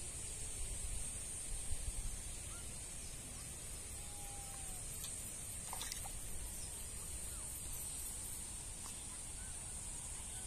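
Outdoor pondside ambience: a steady high-pitched hiss over a low wind rumble, with a few faint bird chirps and a faint click about six seconds in.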